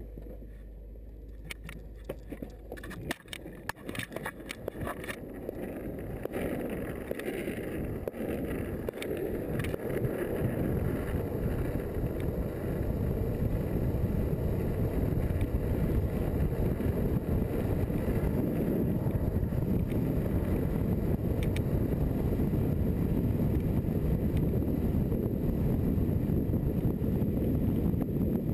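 Wind rushing over a pole-held action camera and longboard wheels rolling on asphalt during a fast downhill run. The rush grows steadily louder as the board picks up speed, then holds. There are a few sharp clicks and knocks in the first few seconds.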